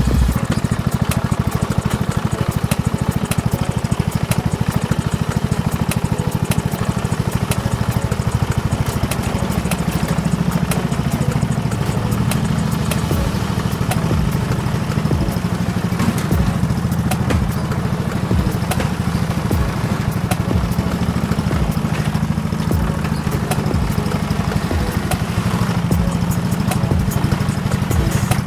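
McCulloch M125-97 riding mower's Briggs & Stratton engine running steadily while the mower drives, with a scatter of clicks and crackles over the engine's deep drone.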